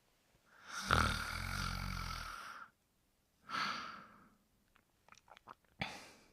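Snoring: a long in-breath with a low rattle about a second in, followed by a breathy out-breath. A few soft clicks follow, then another short breath near the end.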